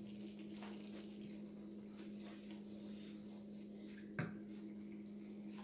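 Tomato sauce simmering in a frying pan, a faint bubbling with small pops over a steady low hum. About four seconds in, a wooden spoon stirs the sauce with a brief scrape against the pan.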